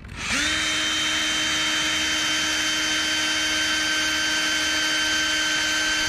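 Electric drill running at a steady speed as it bores a hole into a painted exterior trim board for a mounting screw. The motor whine holds one even pitch, then dips briefly near the end.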